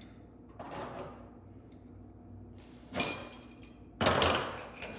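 Metal tools and parts clattering in a few short bursts: a sharp clank about three seconds in, then a longer rattle about a second later.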